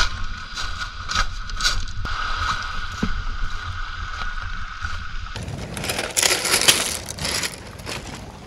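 Footsteps crunching on beach pebbles, with wind rumbling on the microphone. A little over five seconds in, the sound turns into a brighter, louder hiss.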